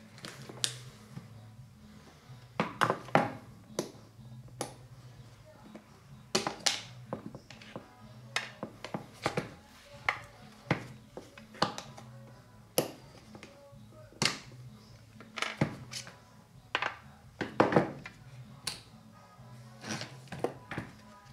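Hard plastic snowboard binding parts clicking, snapping and knocking against each other and on a glass tabletop as they are taken apart and fitted back together, in irregular sharp clicks every second or so. Faint background music runs underneath.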